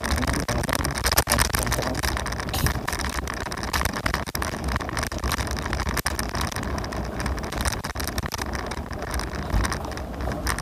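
Wind buffeting the microphone together with tyre and road noise while riding a scooter: a continuous, gusty rushing with no clear engine note.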